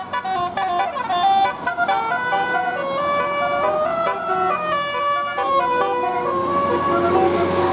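Bus telolet horn, a set of air horns playing a tune. Several notes sound together and change pitch every fraction of a second, then settle into longer held notes near the end.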